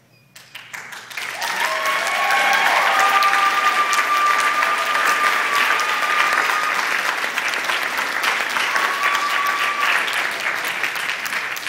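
Audience clapping and cheering, starting suddenly and swelling within a second or two, then easing off near the end. A high held cry rises over the clapping for a few seconds.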